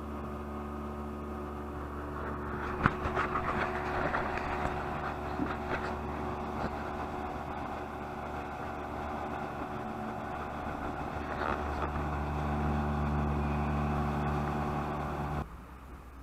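Speedboat engine running steadily at speed, with the splash and hiss of the wake and a sharp knock about three seconds in. Near the end the engine note drops off suddenly as the boat comes off the throttle.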